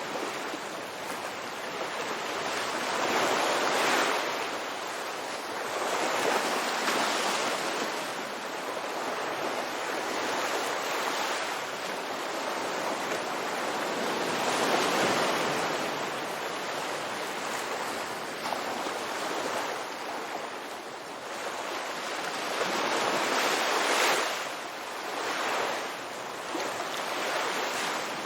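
Ocean waves breaking on a beach, a steady wash of surf that swells and eases every few seconds.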